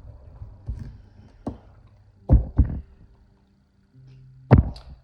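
A handful of dull thumps and knocks, about five, irregularly spaced; two come close together about halfway through, and the loudest is near the end.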